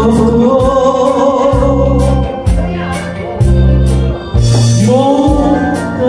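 A man sings a Korean trot song into a handheld microphone over a backing track with a steady drum beat and bass. His sung lines waver with vibrato, and he pauses briefly between phrases in the middle.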